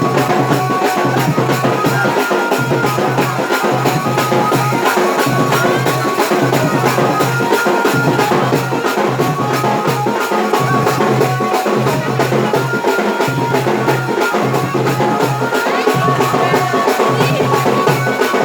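Dance music with a quick, even drum beat, a steady bass and a held melody line.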